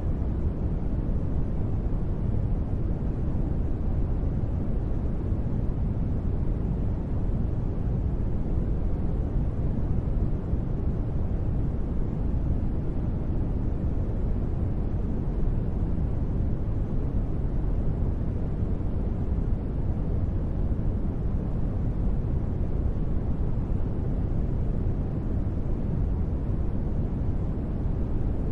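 Steady, unbroken noise of a sleep-sound space-ambience track, weighted to the low end so it sounds like a deep rumbling hiss rather than bright white noise, with no change throughout.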